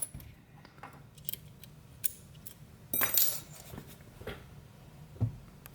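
Small metallic clicks and scrapes from a Fichet 450 lock and a thin homemade feeler-gauge tool being worked as the plug is turned back, with a louder scrape about three seconds in and a low knock near the end.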